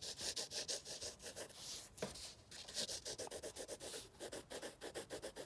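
Pencil shading on paper in rapid back-and-forth scribbling strokes, filling in a shadow under a drawing.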